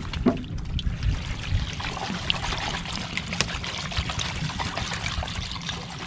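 Water pouring in a steady stream from a large plastic bottle into an aluminium cooking pot of shellfish and vegetables, filling it to make soup broth.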